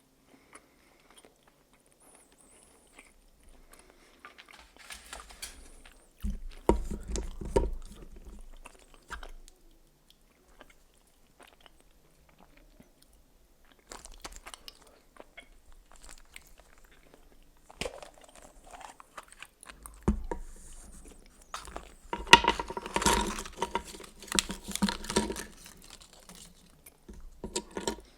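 Close-miked biting and chewing of a Kinder Surprise Maxi milk-chocolate shell, crunchy crackling in bouts with short pauses, loudest in the second half.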